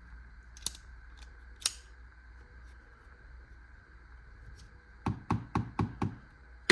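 Two sharp clicks from a folding pocket knife, then from about five seconds in a quick run of hard knocks, about four a second: the opened knife's spine struck against a hard surface in a tap test of its blade lock.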